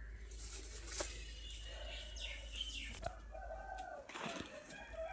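Farmyard birds calling, with a few short chirps falling in pitch about two seconds in over a light rustle.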